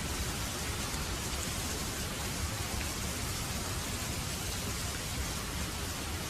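Steady rain falling, a dense even hiss of drops on surfaces.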